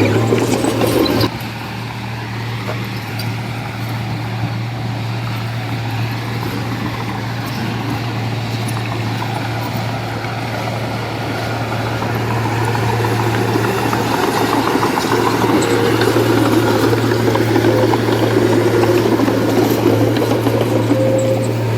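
Diesel engine of heavy earthmoving machinery running steadily. The sound drops about a second in, then slowly grows louder through the second half.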